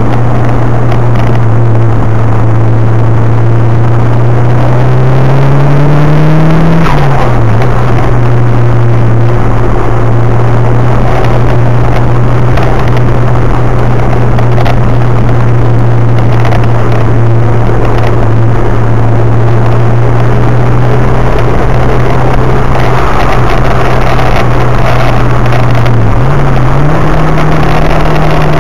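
Nissan Silvia S13's engine under way on a race track, heard loud from inside the cabin. The revs climb for several seconds, drop sharply about seven seconds in, then hold steady for a long stretch, with a short dip and climb again near the end.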